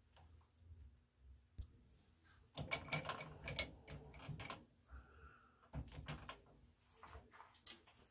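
Metal lathe cutting a heavy chamfer on the end of an O1 tool-steel rod with a diamond tool holder: quiet, irregular scraping and crackling of the cut, loudest in a cluster starting about two and a half seconds in and again around six seconds.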